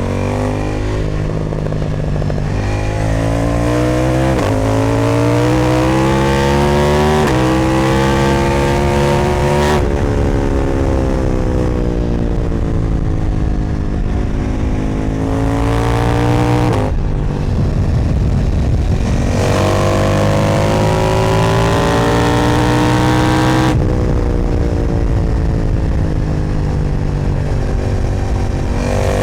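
KTM 990 Duke with an Austin Racing exhaust accelerating hard through three gears, its pitch climbing and dropping at each quick upshift. It then slows on the engine over several seconds, pulls again after a sudden change about two-thirds in, and picks up once more near the end, with wind noise throughout.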